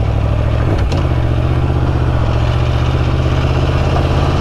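Motorcycle engine running steadily at low revs while riding. Its pitch steps up slightly a little under a second in, with a short click at that moment.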